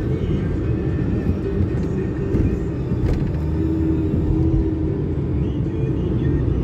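Steady road and engine noise heard inside the cabin of a moving car, a constant low rumble.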